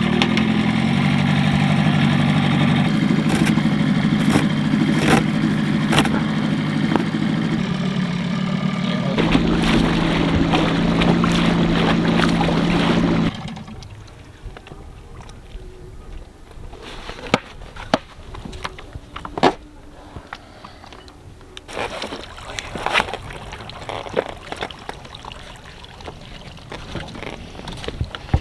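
A dinghy's small outboard motor running steadily, its pitch shifting twice as the throttle changes. It cuts off suddenly about halfway through, leaving scattered knocks and bumps as the dinghy comes alongside the sailboat's hull.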